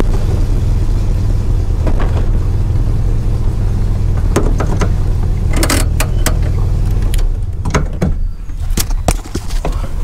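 A car engine running steadily, then cutting off about seven and a half seconds in. Sharp clicks and rattles follow, growing more frequent near the end.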